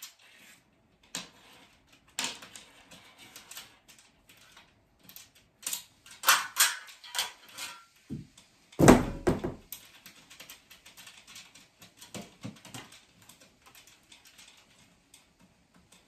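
Clicks, rattles and knocks from hand assembly of a black metal trolley frame: small bolts and metal parts being handled. One louder, heavier thump comes about nine seconds in.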